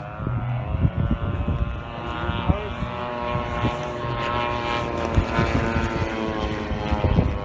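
Radio-controlled model warbirds flying past, their engines and propellers making a steady drone whose pitch sags a little toward the end. Wind buffets the microphone throughout.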